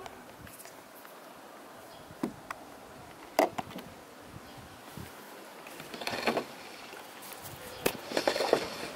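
Scattered small clicks, taps and scrapes of plastic car-antenna parts being handled and fitted on the car roof, with a few sharper knocks and two short scraping flurries near the middle and end.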